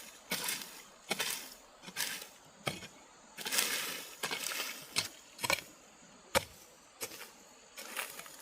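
A hand tool working with repeated sharp strikes and scrapes, about a dozen in an uneven working rhythm, with one longer scrape midway.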